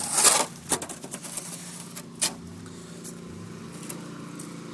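Small engine of a sidewalk snow-clearing machine running steadily, growing a little louder, with a few short crackling noises in the first couple of seconds.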